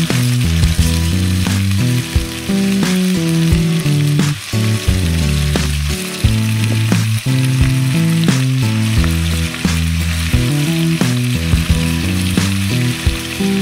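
Chicken curry sizzling as it fries in the pot, with a spoon scraping and knocking as it is stirred, under background music with a moving bass line.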